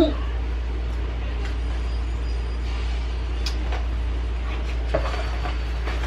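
Steady low hum of room background noise, with a brief voice sound at the start and a few faint clicks.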